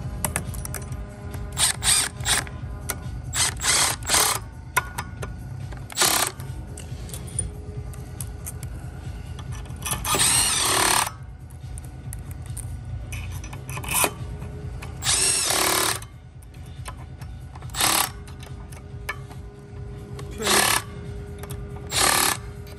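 Cordless impact driver with a hex bit driving the cylinder-head screws of a refrigerant recovery compressor. It runs in a dozen or so short bursts and twice for about a second, bringing the screws down a little at a time.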